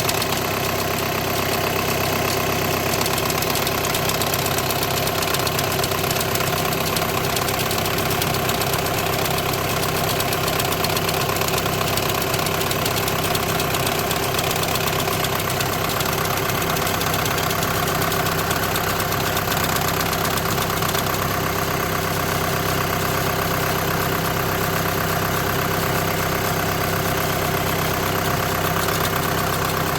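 Engine of a 2008–2014 Volkswagen with a DSG gearbox idling steadily, carrying a strange noise that the mechanic puts down to clutch plate vibration or a worn clutch bearing.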